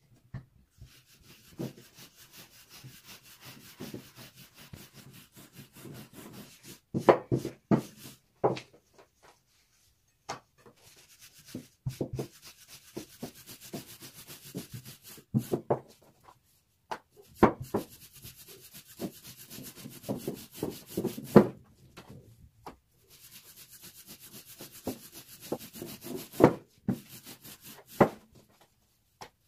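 A long wooden rolling pin rolling thin sheets of baklava dough by hand on a floured wooden table: a rubbing swish in repeated strokes. Sharp knocks of wood on wood break in now and then, several close together about seven seconds in.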